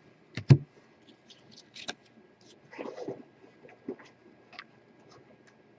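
Trading cards being handled and flipped through a pack: a few short clicks and soft rustles, spaced irregularly.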